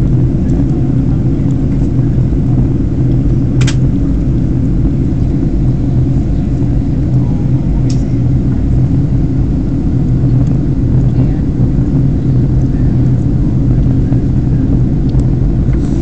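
Steady low roar of an airliner cabin at cruise altitude: jet engine and airflow noise heard from a window seat. A brief click sounds about four seconds in and another near eight seconds.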